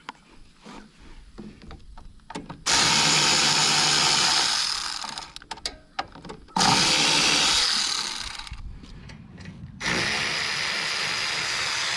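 Husky cordless ratchet spinning out the 12 mm intake bolts on a lawn-tractor engine in three steady runs of about two seconds each, with light clicks of handling before the first.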